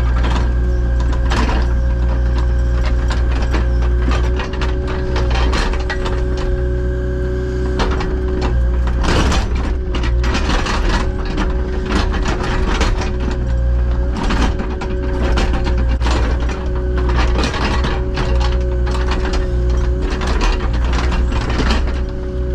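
Excavator's diesel engine running steadily with a constant whine, while the bucket clanks and scrapes irregularly against rock and stone as it digs.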